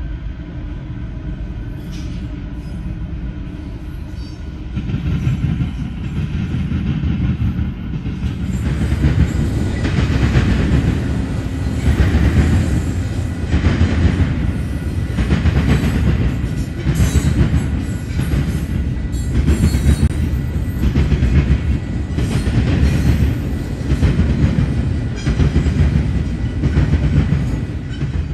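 A long intermodal freight train's cars rolling through a grade crossing. The rumble grows louder from about eight seconds in and then pulses with a steady clickety-clack as each set of wheels passes.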